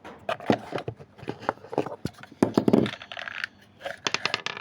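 Small objects being handled on a tabletop: irregular clicks, knocks and light clinks, with a crinkly rustle near the end, as play dough ingredients and containers are set out.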